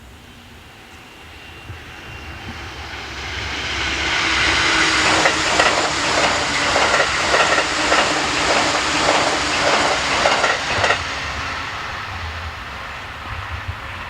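Electric train passing close by at speed on an open line. The rush swells over a few seconds, then a rapid run of wheel clicks over the rail joints goes by for about six seconds before it ends and fades away.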